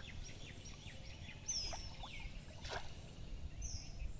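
Water sloshing and splashing around a man wading and handling a bamboo fish trap, with a few sharp splashes or knocks. Over it a bird gives a short, high, falling call about every two seconds.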